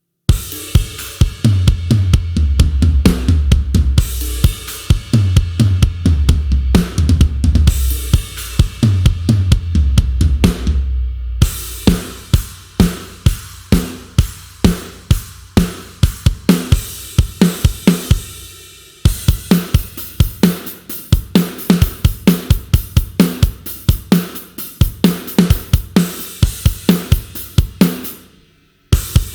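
Sampled rock drum kit from GetGood Drums' One Kit Wonder Aggressive Rock library playing grooves of kick, snare, hi-hat and cymbals. A low sustained part moves under the drums for about the first ten seconds. The playing breaks off briefly about eleven seconds in and again just before the end.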